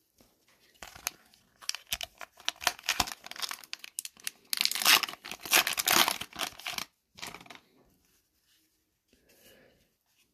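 Foil wrapper of an Upper Deck hockey card pack crinkling in the fingers, then ripped open with a loud, drawn-out tear about halfway through, and a last crinkle as the pack is pulled apart.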